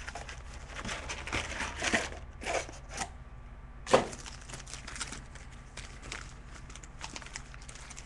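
Plastic shrink-wrap being torn and crinkled off a box of trading cards as the box is opened, with one sharp knock about four seconds in, then lighter rustling.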